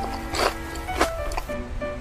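Background music with steady held notes, cut by two short, sharp noise hits about half a second and a second in.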